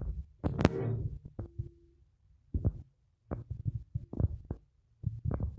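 Irregular muffled thumps and knocks in short clusters, with rustling between, close to the microphone.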